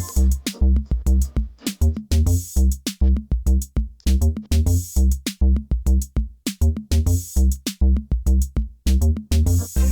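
Background electronic music with a drum-machine beat: a heavy kick drum and bass, with a cymbal crash about every two and a half seconds.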